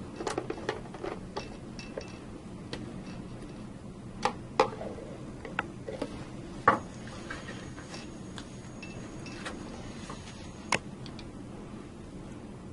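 Screwdriver clicking against screw heads as the front cover of a circuit breaker is screwed down: a quick run of small sharp clicks in the first second and a half, then scattered single clicks, the loudest nearly seven seconds in.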